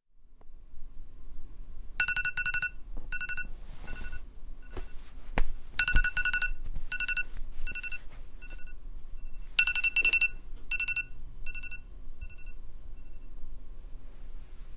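An electronic ringtone: runs of quick, evenly pitched beeps starting about every four seconds, each run trailing off, with a few soft knocks in between.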